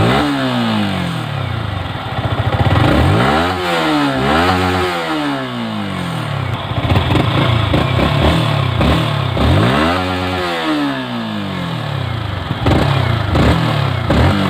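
Yamaha R15 V3 BS6's 155 cc single-cylinder engine idling with the throttle blipped several times: one rev at the start, two quick revs together a few seconds in, and a longer rev past the middle, each falling back to idle.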